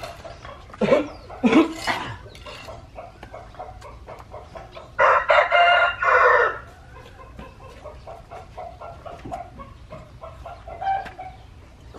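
A rooster crowing once, loud and about a second and a half long, about five seconds in, with shorter fowl calls near the start and light clicks throughout.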